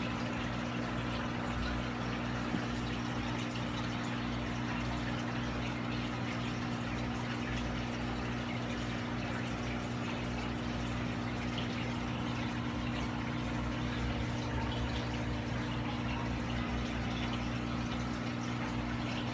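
Aquarium filter running: a steady low pump hum with water flowing and splashing in the tank.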